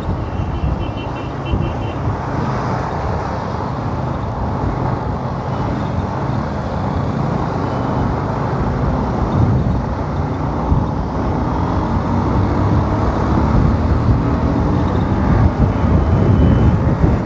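Motorcycle running along in town traffic, heard from the rider's seat, its engine note rising and falling with the throttle and getting a little louder near the end.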